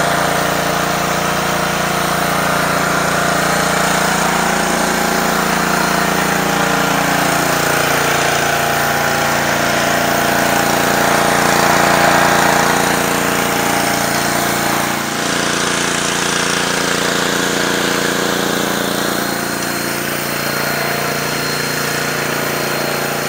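Honda GCV190 single-cylinder engine of a Simpson 3000 psi gas pressure washer running steadily under load, over the hiss of high-pressure water spraying from a surface cleaner onto concrete. The engine note eases down slightly about eight seconds in.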